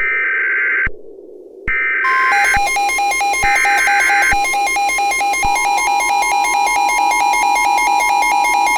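Emergency Alert System header: three short bursts of screeching digital data tones about a second long each. From about two seconds in they are overlaid by a rapidly pulsing two-pitch electronic alert tone and a steady tone.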